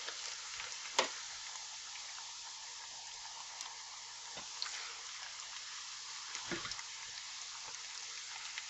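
Pork pieces frying in hot oil in a pot, a faint steady sizzle. A few knocks of a cooking spoon against the pot as the browned pieces are lifted out, the sharpest about a second in.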